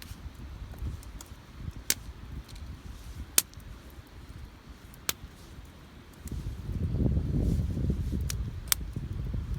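Campfire crackling, with a handful of sharp, separate pops from the burning wood. A louder low rumble sets in about six seconds in.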